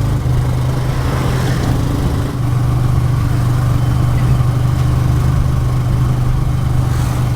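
Motorcycle tricycle engine running steadily with a low hum.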